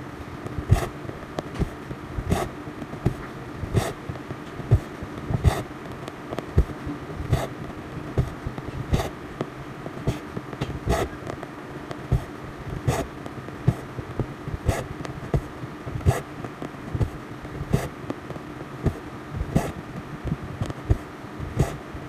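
A cross-stitch needle piercing stretched cross-stitch fabric and the thread being drawn through it, giving a series of short sharp taps about one or two a second, over a steady low hum.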